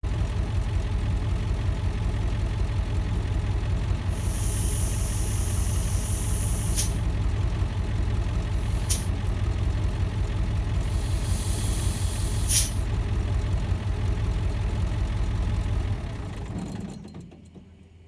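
Kenworth K100 cabover truck's diesel engine idling, with air-brake hissing and puffs of released air. A hiss about four seconds in ends in a sharp burst of air, a single puff comes near nine seconds, and a second hiss ends in another burst about twelve and a half seconds in, as the brakes are worked while the new brake lights are tested. The engine sound dies away about sixteen seconds in.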